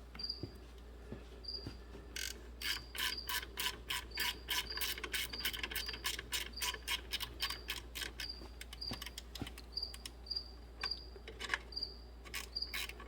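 3/8-inch socket ratchet clicking in quick runs as a freed nut is backed off. A cricket chirps regularly in the background.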